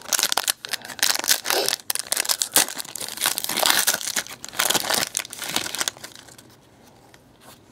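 Foil wrapper of a Panini NASCAR trading card pack being torn open and crinkled by hand, a dense crackling rustle that stops about six seconds in.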